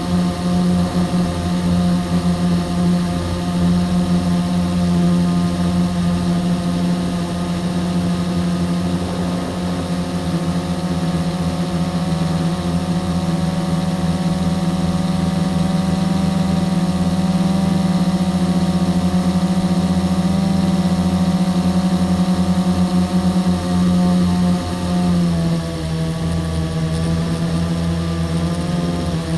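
An engine running at a steady speed with a constant hum, its pitch stepping down a little about 25 seconds in and again at the end.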